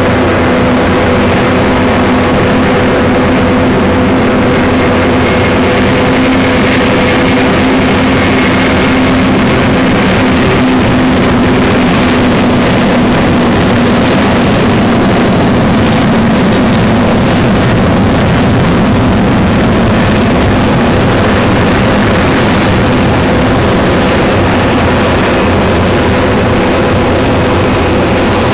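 Boeing 747-200's four jet engines at takeoff thrust during the takeoff roll: a loud, steady roar with a low hum that drops slightly in pitch midway as the airliner passes.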